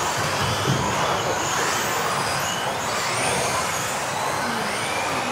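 Several electric off-road RC racing cars lapping together: a steady din of motor and tyre noise, with faint motor whines gliding up and down as the cars speed up and slow down.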